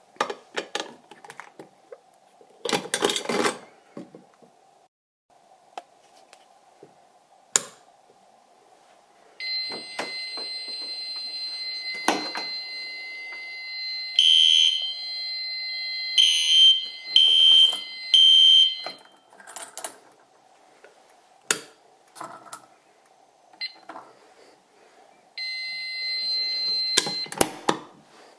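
Fire alarm system sounding during a test. A steady high electronic tone starts about a third of the way in and runs for about ten seconds, with louder pulsed beeps about a second apart over its second half. The tone sounds again briefly near the end, with clicks and knocks of handling in between.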